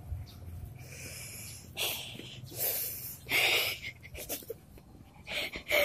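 A boy's stifled, breathy laughter: several short bursts of breath through a grin, the longest about a third of the way in and another near the end.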